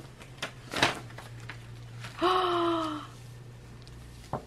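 Paper rustling and crinkling as a greeting card and a folded sheet are handled and opened, with a sharper crackle just under a second in. About two seconds in, a voice gives a short drawn-out 'ooh' of delight that falls slightly in pitch, the loudest sound here.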